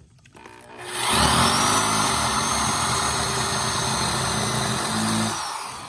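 Power drill with a Phillips screw bit driving a screw into wood. The motor spins up about half a second in, runs steadily under load for about four seconds, then winds down near the end.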